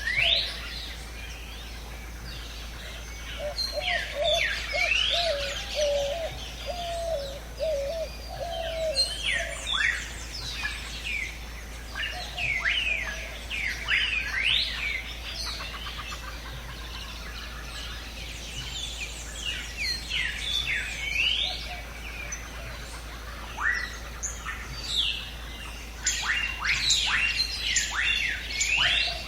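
Several birds calling in jungle ambience: many short, quick rising whistled chirps overlapping throughout, with a lower warbling call from about three to eight seconds in.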